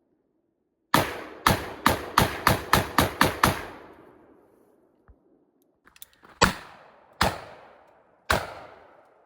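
Gunshots from a firearm: a quick string of about nine shots, roughly three a second, each ringing out briefly, then a few faint clicks and three more single shots spaced about a second apart.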